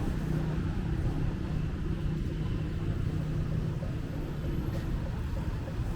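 City road traffic: a steady low rumble of vehicle engines, with one engine's hum standing out for the first couple of seconds.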